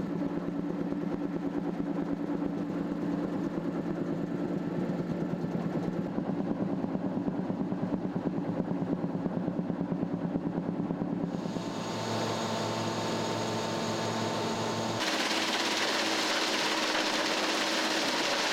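Drum wood chipper running, its toothed rotor drum spinning with a steady mechanical hum. The sound changes abruptly about twelve and fifteen seconds in. The last part is a louder, hissier rushing noise.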